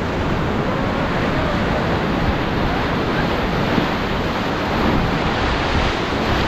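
Steady rush of whitewater around a raft running a small river rapid, with wind on the microphone.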